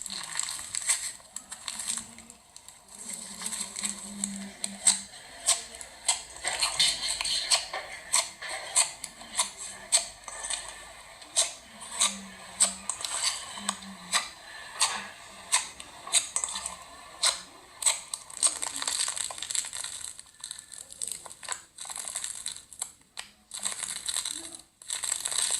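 Hands squishing and stretching slime, with an irregular run of sharp pops and crackles.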